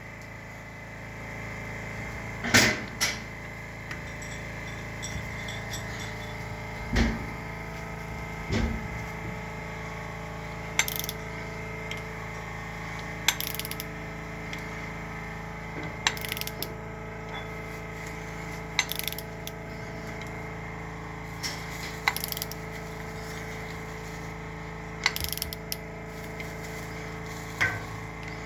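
Metal hand tools clinking and rattling against engine parts during work on a Cummins V12's cylinder head, a sharp clink every two to three seconds over a steady hum. The loudest clink comes about two and a half seconds in.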